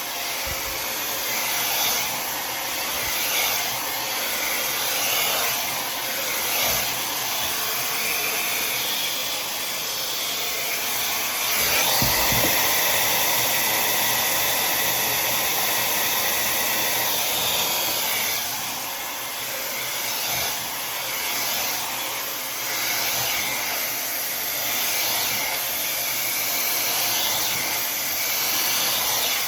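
Tymo Air Hype hair dryer blowing hot air at full power, a steady rush that rises and falls as it is moved around thick hair, louder for several seconds about midway.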